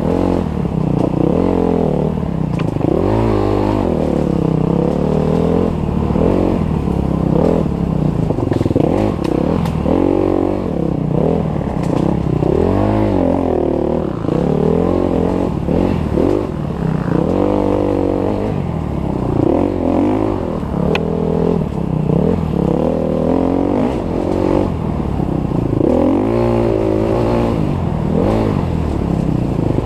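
Enduro dirt bike engine heard from the rider's helmet camera, revving up and dropping off again and again as the throttle is worked through tight turns. There are occasional knocks and rattles from the bike over the rough trail.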